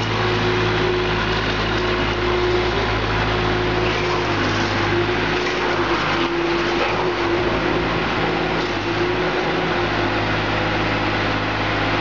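Engine of an SHK wheeled mini skid steer loader running steadily as it drives, its note wavering slightly about halfway through.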